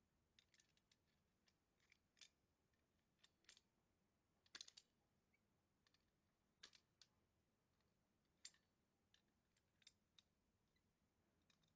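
Faint, scattered light clicks at irregular intervals, with a short cluster of louder clicks near the middle.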